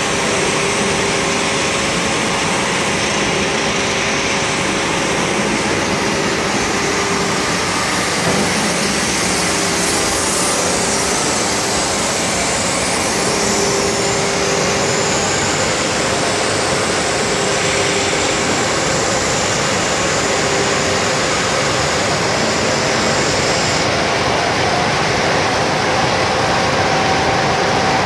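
CNC diamond-wheel edge grinder for automotive glass running, its spindle grinding the edge of a glass sheet: a steady loud grinding noise with a few faint humming tones underneath.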